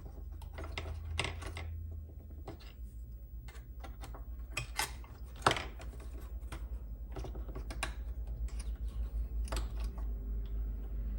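Irregular small clicks and light knocks of plastic and metal parts being handled as a floppy disk drive's cable connector is unplugged and the drive is worked apart, over a steady low hum.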